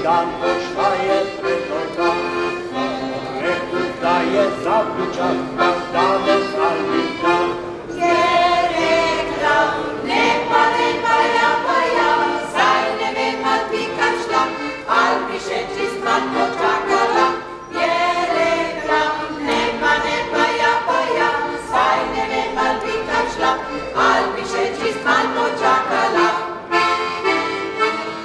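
Piano accordion playing a traditional Slovenian folk tune, joined about eight seconds in by a choir of women's voices singing along.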